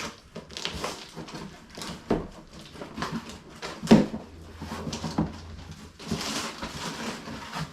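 A cardboard shipping package being handled and opened by hand: irregular rustling, scraping and small knocks, with one sharp knock about four seconds in.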